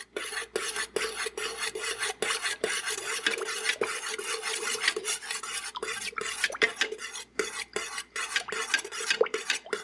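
Metal stirrer scraping and clinking against the bottom and sides of a metal candle-wax pouring pitcher in quick, continuous strokes, mixing fragrance oil into the melted wax.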